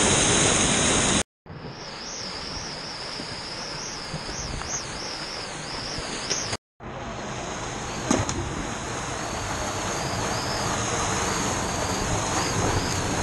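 Rushing water of canyon waterfalls and a fast stream: a close, loud rush for about the first second, then quieter after a sudden break, with a second brief dropout about halfway through. A faint high, wavering buzz runs over the water, and there is a single sharp knock about eight seconds in.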